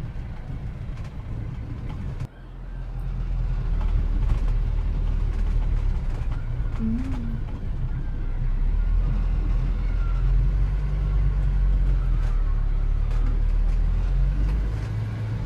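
Motor vehicle engine running with a steady low rumble. The sound cuts off suddenly about two seconds in, then a louder engine rumble builds up and holds.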